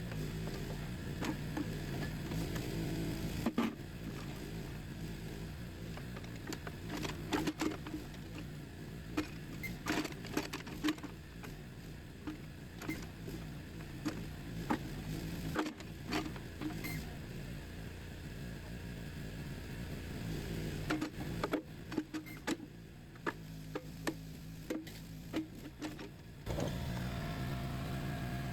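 Small engine of a Harbor Freight backhoe trencher running steadily, with scattered sharp knocks and clanks throughout. Music comes in near the end.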